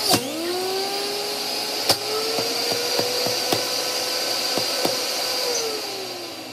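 Electric juicer motor running as chopped vegetables and fruit are fed in. Its pitch drops at each knock and climbs back as the machine takes the produce. Near the end it is switched off and winds down, the pitch sliding lower as it fades.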